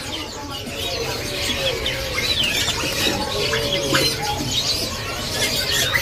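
Many caged songbirds calling at once: a dense, overlapping mix of chirps and short whistles, some gliding up or down in pitch.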